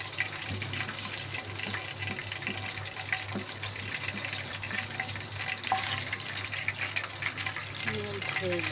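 Butter melting and foaming in hot olive oil in a frying pan: a steady sizzle with scattered small pops.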